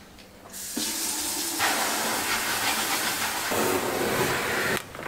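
White laundry powder poured in a steady stream into a plastic tub, a continuous hiss that begins about half a second in and cuts off sharply near the end.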